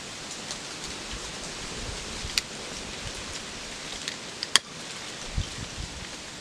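A newly lit fire burning with a steady hiss and scattered sharp crackles. Two crackles stand out, about two and a half and four and a half seconds in, followed by a dull low bump or two near the end.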